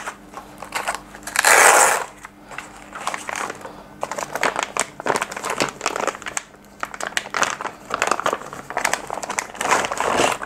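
Clear plastic packaging bag crinkling and rustling as it is handled, with light clicks and clatter from the cable connectors inside it. There is a loud burst of crinkling about one and a half seconds in and another near the end.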